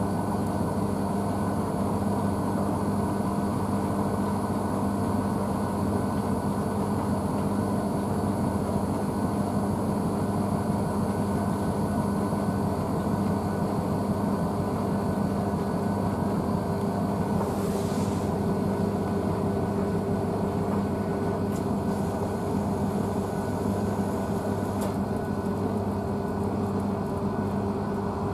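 Blomberg WNF9448 front-loading washing machine spinning its drum at a steady speed, its motor giving a steady hum while foamy water swishes around inside. This is the spin between the main wash and the first rinse.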